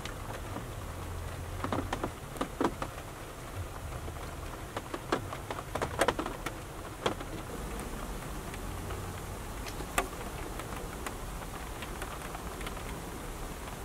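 Raindrops tapping irregularly on the roof of a small fiberglass travel trailer, heard from inside, with a low steady hum underneath.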